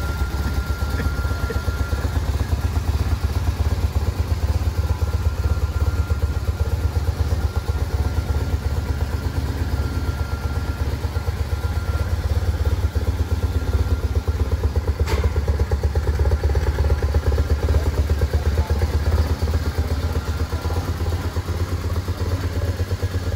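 BMW R1100RT's flat-twin boxer engine idling steadily, with a quick, even pulsing beat. A single sharp click about fifteen seconds in.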